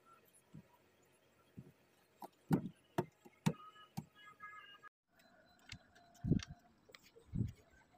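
Light knocks and taps of a stiff laminated cardboard strip being handled and set down on a tabletop, a few separate strikes with short pauses between them.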